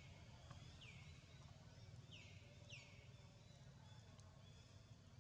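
Faint, high animal calls, each a quick falling sweep that levels off, heard four times at irregular intervals over a low rumble.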